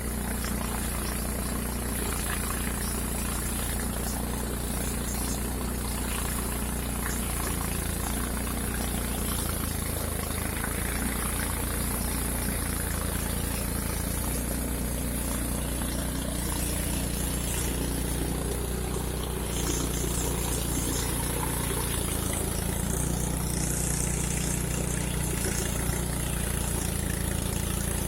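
Engine-driven rice threshing machine running steadily, a constant engine hum, getting a little louder about two-thirds of the way through.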